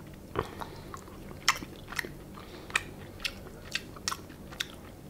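A person chewing crispy fried fish close to the microphone, with sharp crunches every half second or so.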